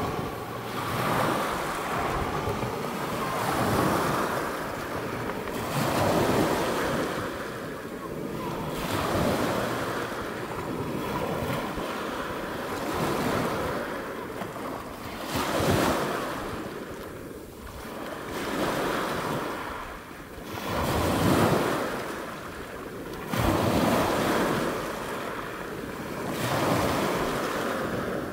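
Small waves breaking and washing over a pebble beach, swelling and fading every few seconds, with wind buffeting the microphone.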